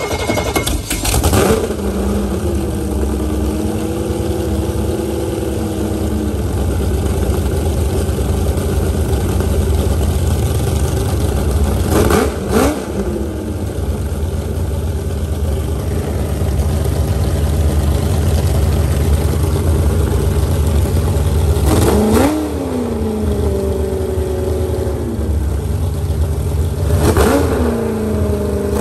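Jet boat's freshly rebuilt big-block V8 idling through open upswept headers while its ignition timing is set with a timing light. The throttle is blipped about four times, each rev falling back to idle.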